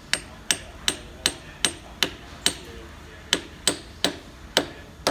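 Small hammer tapping repeatedly on the end of a birch knife handle, about a dozen sharp strikes at two to three a second, with a short pause midway. The strikes are seating a part down onto the handle.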